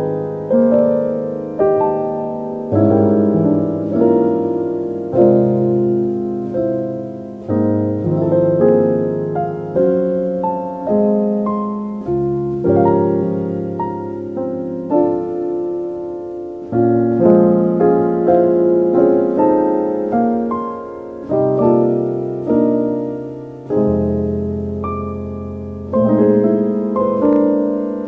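Slow, soft solo piano music, chords and single notes struck about once a second, each fading away before the next.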